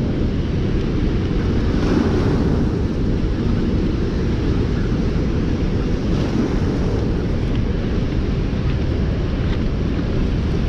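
Steady rush of turbulent whitewater pouring below a dam's open spillway gates, with wind on the microphone adding a low rumble.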